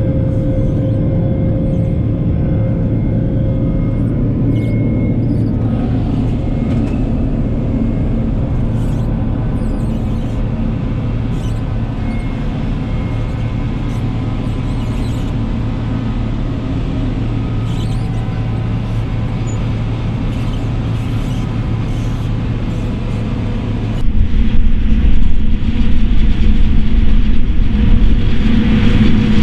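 Heavy farm machinery engine running steadily with a constant drone. About 24 s in, it cuts abruptly to a louder, deeper engine sound.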